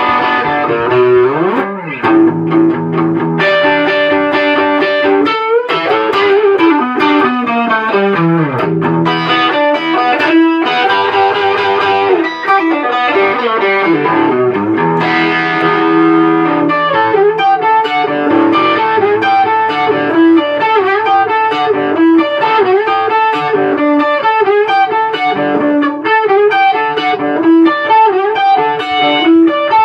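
Electric guitar playing with distortion, including several sliding notes that glide up and down in pitch.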